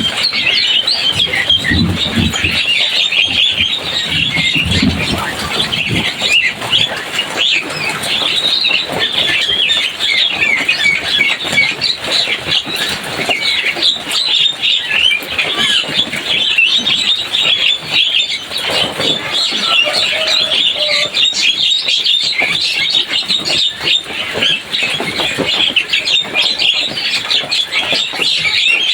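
Javan myna (jalak kebo) singing without a break: a dense run of rapid chattering, squeaky and whistled notes.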